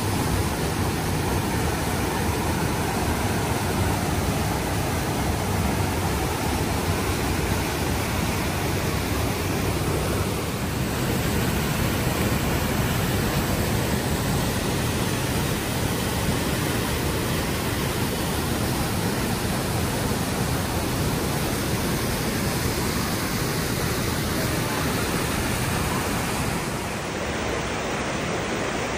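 Johnston Creek's rapids and cascades rushing through the narrow canyon: a steady, loud rush of white water, dipping slightly near the end.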